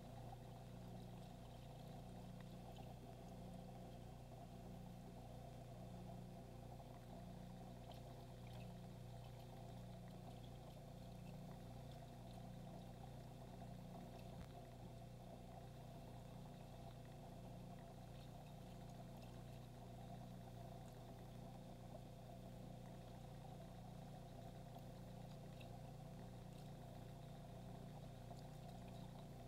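Faint steady hum of aquarium equipment with a light trickle of water, and a few faint ticks.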